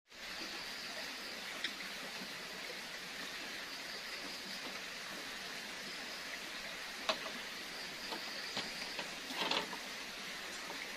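Steady hiss of the forest at dusk, with a few light clicks and a short clatter of cooking things being handled near the end.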